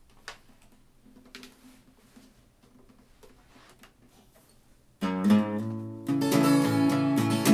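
A few faint clicks, then about five seconds in an acoustic guitar starts strumming chords loudly, the opening of a song.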